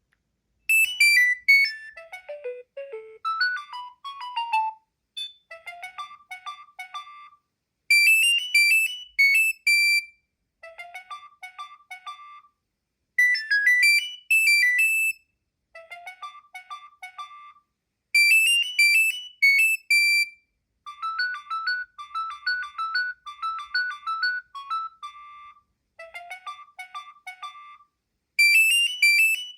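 Nokia 7250i polyphonic ringtone: a synthesized tune of short, quick notes, starting about a second in and looping a phrase about every five seconds.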